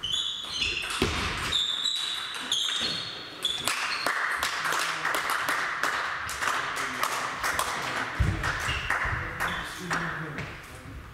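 Table tennis rally: sharp clicks of the ball on bats and table, with short high squeaks of shoes on the hall floor in the first few seconds. After that come scattered taps and faint voices in the reverberant hall as play stops.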